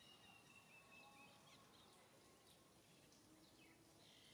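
Near silence: faint outdoor ambience with scattered short, high chirps and a thin falling whistle about a second long early on.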